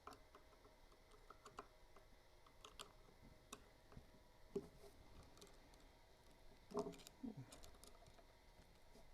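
Faint, scattered light clicks and taps of hand tools and small metal parts being handled while an old spring-driven movement's gear train is taken apart, with two slightly louder knocks, one a little before five seconds in and one near seven seconds.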